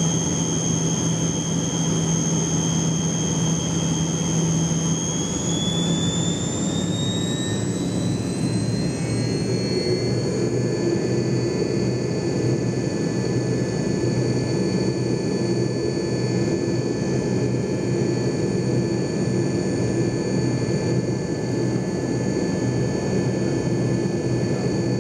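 Tupolev Tu-134's Soloviev D-30 turbofan engines heard from inside the cabin, spooling up about five seconds in: the whine rises in pitch over several seconds, then holds steady at higher power over a constant rushing noise. This is the thrust increase for a go-around from final approach.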